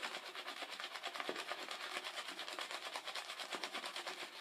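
Synthetic shaving brush swishing quickly through wet Mitchell's Wool Fat soap lather, rapid even strokes several times a second, as the lather is built up toward thick, slick peaks.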